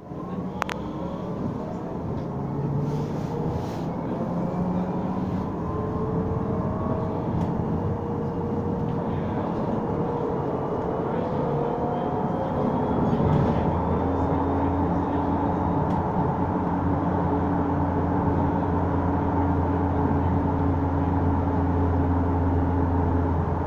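Bus interior while riding: the bus's drivetrain whine rises slowly in pitch over road noise for the first dozen seconds as it gathers speed, then settles into a steady low hum.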